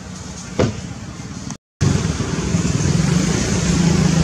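Steady outdoor background noise with a motor vehicle engine hum. There is a short sharp sound about half a second in, then a brief break in the sound, after which a louder, steady low engine hum continues.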